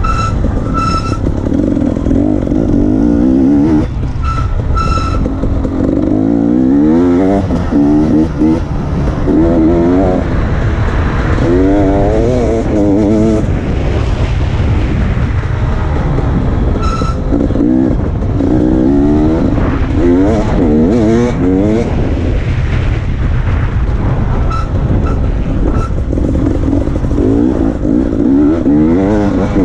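Dirt bike engine revving up and down again and again as it accelerates and shifts gears along a dirt track, over a steady low rumble.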